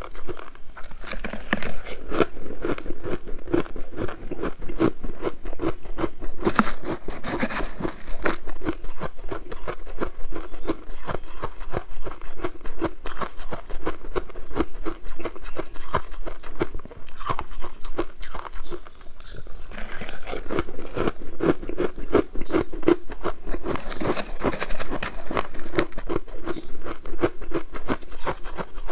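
Soft white shaved ice being crunched and chewed, a dense crackle of many small crunches that goes on without a break.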